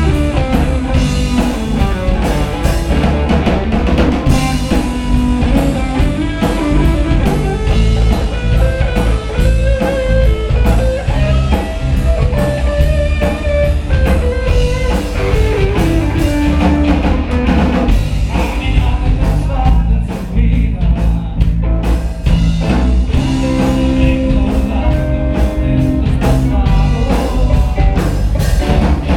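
Live rock band playing: electric guitars over a drum kit keeping a steady beat, with a melody line that steps and slides up and down through the middle of the passage.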